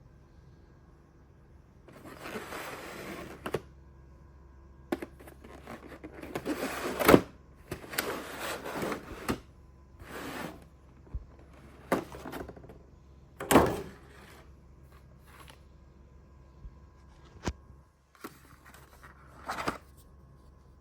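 Packaging and parts of a grooming kit being handled and unpacked: irregular rustling and scraping, broken by sharp clicks and knocks, two of them louder than the rest near the middle.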